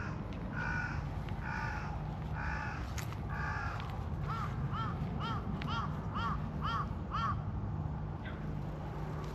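Crows cawing: about five hoarse caws roughly one a second, then a quicker run of seven shorter, clearer arched calls about two a second, over a steady low background hum.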